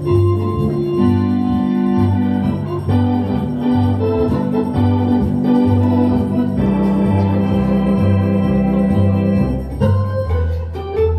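Hammond organ playing live: held chords over a bass line that pulses about twice a second, with the chords changing every second or two.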